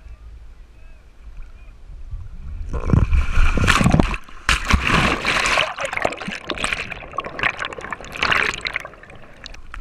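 Water splashing, starting about three seconds in, loudest for the next second or so, then going on unevenly before easing near the end.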